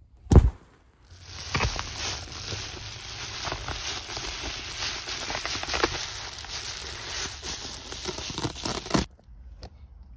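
A crinkly window cover being pulled off a truck cap's side window, crinkling and rustling for about eight seconds before stopping abruptly. A single thump comes just before it starts.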